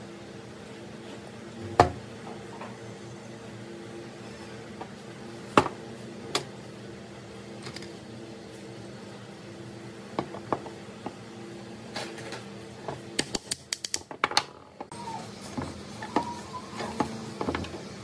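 Sharp clicks and knocks of aluminium fan-motor housing parts being handled and fitted on a wooden workbench, with a quick run of clicks about two-thirds of the way through, over a steady low hum.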